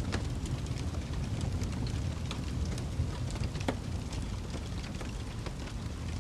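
Wood fire crackling: scattered sharp pops and snaps over a steady low roar of the flames, with a louder pop right at the start and another a little past the middle.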